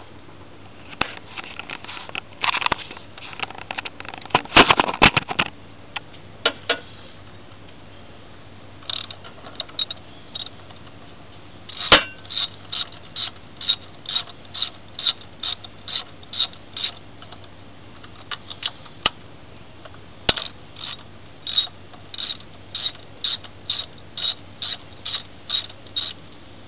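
Socket ratchet clicking in short, even strokes, about two a second, while a fastener or spark plug is unscrewed from a BMW M50 straight-six engine. It comes in two runs, with a pause between them. Before that come irregular clatters and knocks of tools and parts being handled.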